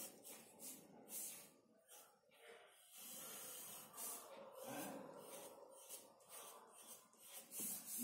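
Faint scratching of a pencil on drawing paper in short, irregular strokes, about one or two a second.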